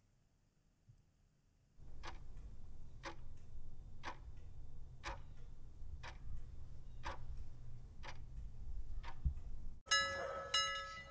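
Ticking clock sound effect counting off a thinking break: about eight ticks, one a second, over a low hum. Near the end a bell chime rings out, marking that time is up.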